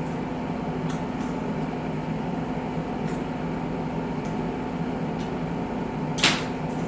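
Steady hum of a room appliance with fixed low tones throughout, with faint clicks of someone eating chicken wings and one louder sharp wet crunch about six seconds in.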